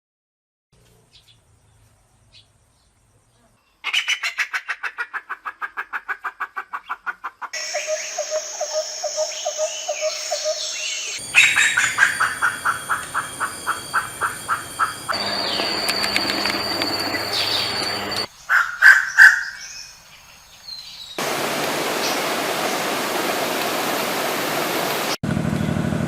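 Pheasant calls in a string of separate clips: rapid trains of short repeated notes, about five a second, starting about four seconds in, followed by other calls and a steady hiss-like noise for several seconds near the end.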